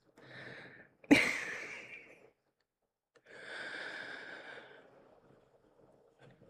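A woman breathing out, speechless: a faint breath, then a sharp exhale about a second in that trails off, then a longer sigh a little after three seconds.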